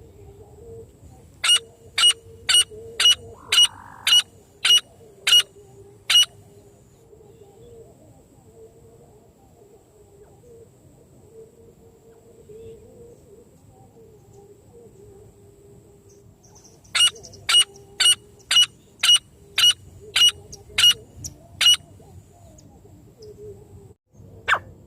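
Francolin calls: two runs of short, sharp, high notes, about two a second and each run lasting about five seconds, with a long pause between them. A single brief sharp sound follows near the end.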